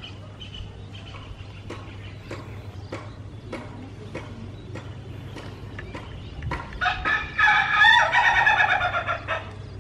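A rooster crowing once: a single long crow of about two and a half seconds, starting about seven seconds in.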